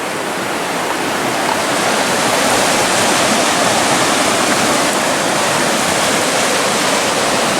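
River water rushing steadily, a dense continuous hiss, growing a little louder over the first two seconds.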